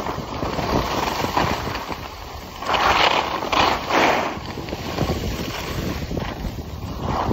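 Skis sliding and scraping over groomed piste snow, with wind buffeting the microphone; a few louder, hissing scrapes come about three to four seconds in.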